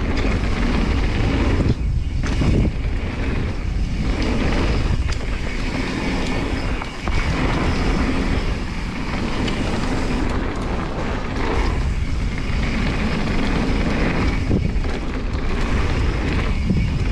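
Specialized Stumpjumper Evo mountain bike riding down a dirt and gravel flow trail, recorded on the rider's action camera: a steady rumble of knobby tyres on loose dirt, with short knocks and rattles from the bike over bumps and wind rushing over the microphone.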